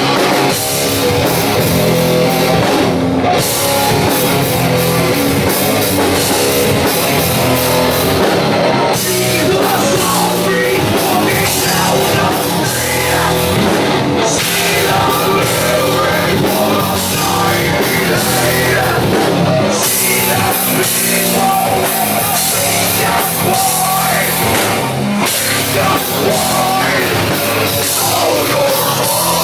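Live rock band playing loud and dense, with distorted electric guitar and drum kit, and short breaks in the cymbals every few seconds.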